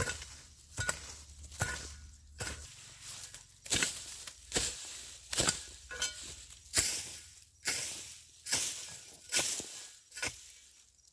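A hand tool striking into the ground in steady, regular chopping strokes, a little under one a second, as cassava is dug out.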